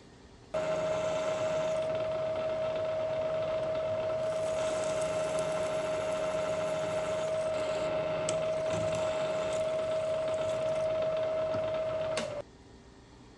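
Milling machine spindle running with a drill cutting a clearance hole in A2 steel: a steady hum with one high tone and cutting noise, with a few sharp ticks in the latter half. It starts suddenly about half a second in and cuts off suddenly near the end.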